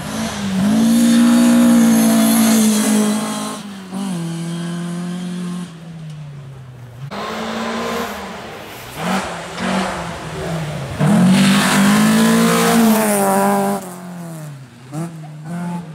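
Rally car engine revving hard at high revs, dropping in pitch in steps at each gear change or lift-off, then a second loud run at high revs about eleven seconds in that falls away, with short throttle blips near the end.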